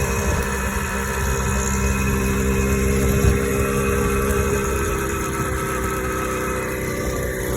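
Motorized bicycle's ported engine running at a steady pitch as the bike is ridden, with one brief knock about three seconds in.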